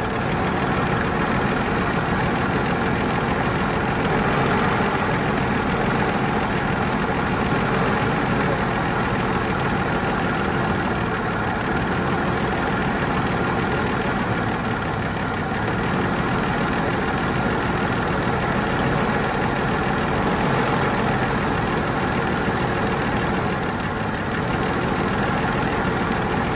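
Toyota Land Cruiser FJ45's carbureted inline-six idling with a slight misfire during a power balance test, as the spark plug leads are pulled one at a time. The running barely changes when cylinders two and five are cut: those plugs are fouled with fuel and carbon, so those cylinders are misfiring.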